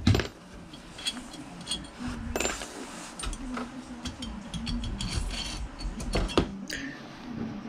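Metal engine parts clinking, knocking and scraping as the cylinder head is worked loose and slid off a GY6-type 50cc scooter engine by hand, starting with a loud knock and followed by scattered light clicks.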